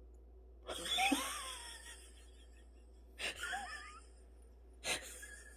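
Two breathy, wavering gasps from a person, each under a second long, followed by a single short tap near the end.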